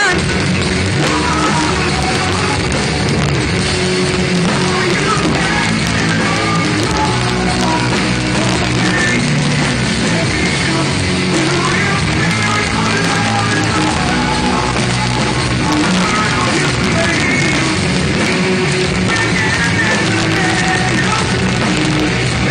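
Live rock band playing loud, with electric guitar and drums, heard from the crowd; the level stays steady throughout.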